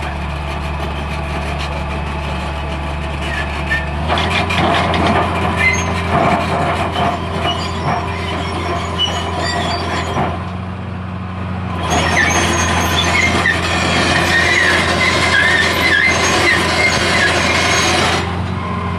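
Hitachi EX200 excavator running: a steady diesel engine note that grows louder and busier twice for several seconds, with short high squeaks and rattles over it.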